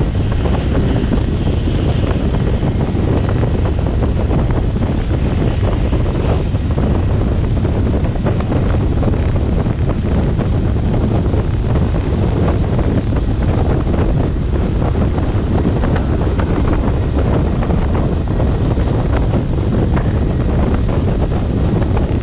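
Steady, loud wind noise on a camera microphone mounted on a Cessna light aircraft's tail, over the drone of the plane's engine and propeller.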